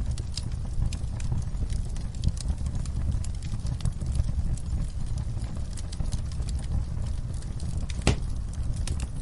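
Wood fire burning in a fireplace: a steady low rumble with frequent irregular sharp crackles and pops, and a louder pop about eight seconds in.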